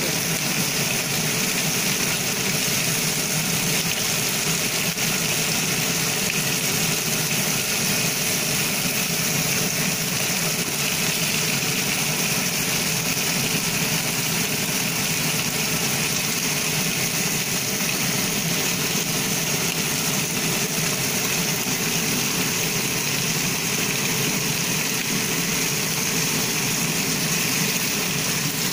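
Whole ka-bāng croakers pan-frying in oil in a nonstick pan: a steady sizzling hiss.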